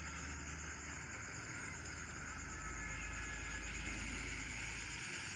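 Off-road jeep's engine running steadily as it drives through deep mud, heard faintly.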